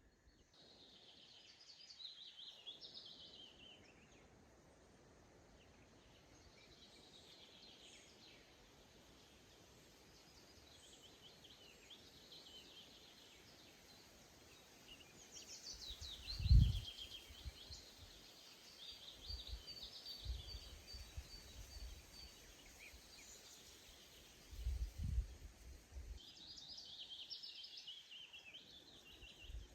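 Several songbirds calling and singing in short chirps and trills over a faint steady outdoor hiss, with low rumbles breaking in about halfway through and again near 25 s, the first being the loudest sound.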